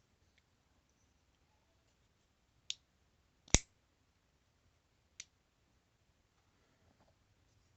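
Boker Kalashnikov mini automatic knife clicking as it is worked. The loudest is one sharp snap about three and a half seconds in, the spring-driven blade firing open, with a lighter click a second before it and another near the middle.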